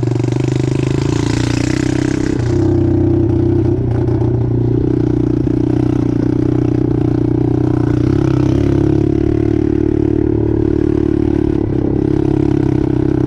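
Apollo 125cc dirt bike's single-cylinder four-stroke engine running steadily while being ridden, with a hiss over it for the first couple of seconds.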